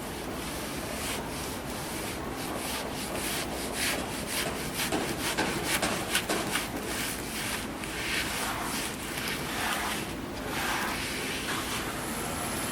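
Plasterer's trowel scraping and spreading cement plaster over a wall in quick, irregular strokes.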